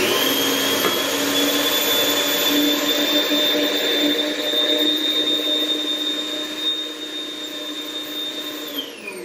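Kenwood mini food processor's motor running steadily with a constant whine, blending pesto; near the end it is switched off and winds down, the whine falling away.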